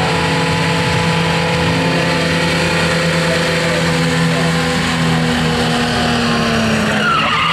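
Loud burnout by a Holden VB Commodore: the engine is held at steady revs while the rear tyres spin and smoke on the pad. The engine note sags a little near the end.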